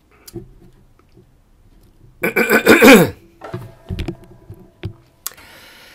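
A man's short, loud, throaty vocal sound, falling in pitch, about two seconds in. It is followed by a few scattered knocks and clicks as the microphone on its stand is handled.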